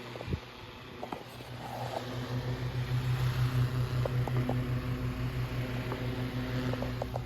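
Antique Emerson Northwind Model 44C AC/DC table fan running: a steady motor hum that grows louder about two seconds in, with a few light clicks.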